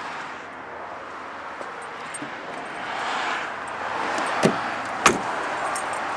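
A vehicle's road noise swelling as it passes. Two sharp knocks, a little over half a second apart, come partway through.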